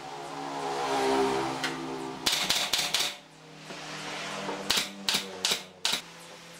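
Pneumatic brad nailer firing, two quick runs of several sharp shots a couple of seconds apart, driving brads through a pine batten into a wooden cabinet side.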